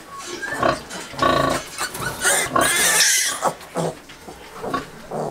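Newborn piglets squealing: a string of short high squeals, with one loud, long squeal for about two seconds in the middle.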